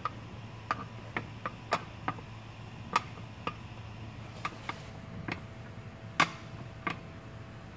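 About a dozen sharp clicks and taps at irregular intervals over a steady low hum, with a faint steady tone joining about halfway through.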